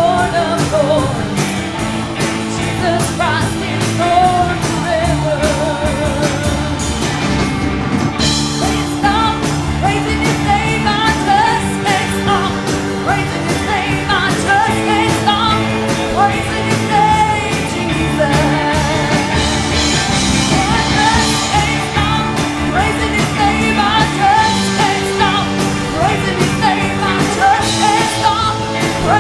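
Church worship music: a band playing with singing over a steady beat.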